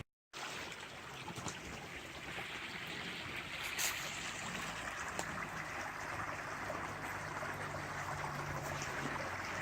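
Mountain spring water trickling out of the rock, a steady running sound with a few faint clicks.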